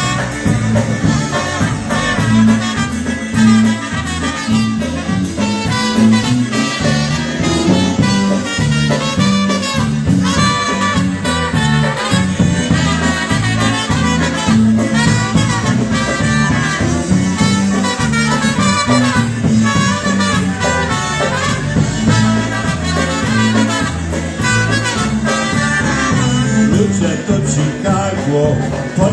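Live polka band playing at full volume, with a bass line stepping between notes under the band.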